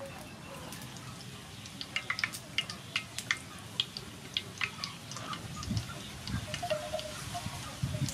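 Dry breadcrumbs crunching and rustling as hands press and turn a raw chicken wing in them, with a quick run of sharp little crackles about two seconds in.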